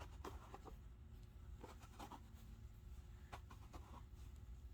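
Faint scraping and a few light clicks as a jar's screw cap is handled and twisted against the rim without going on.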